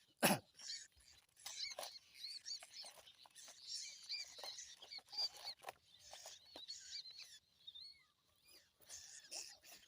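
Small birds giving many short, high chirps and squeaks. A single sharp knock comes just after the start.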